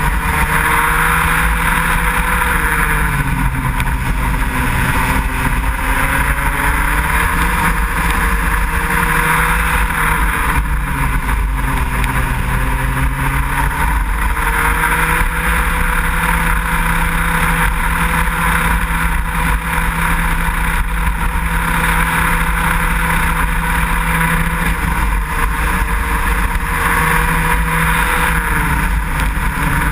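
Racing kart engine heard from an onboard camera at race pace. Its pitch falls three times as it slows for corners, then climbs back up on each straight.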